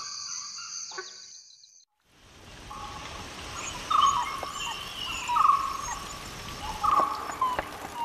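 Crickets trilling, fading away about two seconds in. After a short gap, an outdoor ambience follows in which a short call repeats about every second and a half over faint high chirps.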